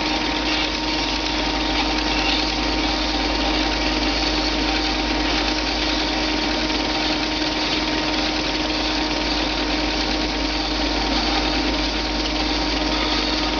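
Belt sander running steadily, a constant hum over a hiss, as the end of a rowan stick is held and turned against the sanding belt to round it off.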